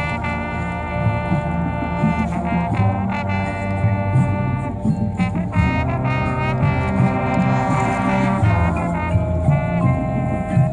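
Marching band brass playing: the horns come in together on a loud chord right at the start and play short, accented phrases with brief breaks, over low brass and drums.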